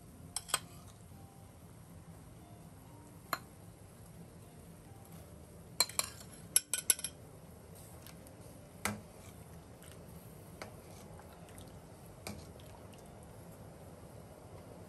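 Metal ladle clinking against the pot while skimming scum off simmering sea bream pieces, with scattered knocks and a quick run of clinks about six to seven seconds in, over the steady low sound of the broth boiling.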